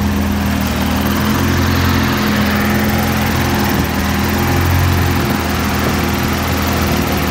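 Infiniti Q50's VR30 twin-turbo V6 idling steadily, heard up close with the hood open.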